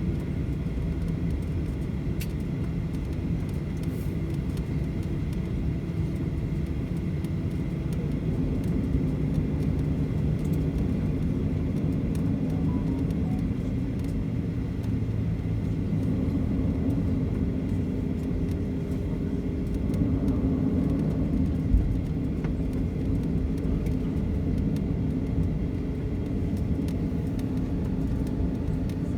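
Steady low rumble and drone of a vehicle in motion heard from inside, with one short knock a little past three-quarters of the way through.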